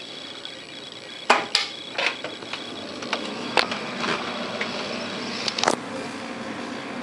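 Irregular sharp knocks and clicks over a rushing hiss that grows louder partway through. It is an unexplained noise inside the house that stopped only once a screen door that kept coming open was shut.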